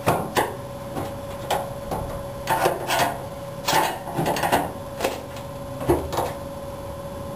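Irregular metal clicks and scrapes of a screwdriver and a fuel-tank sending unit's locking ring against the gas tank's filler opening, as the ring is twisted and knocked to seat its tabs under the tank's retaining notches.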